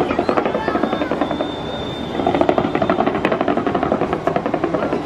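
New Year fireworks crackling in a rapid, steady string of pops, many a second, over the murmur of a crowd.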